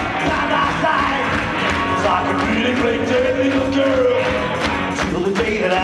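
Live garage rock band playing: electric guitars and drums, with a long held sung line over them.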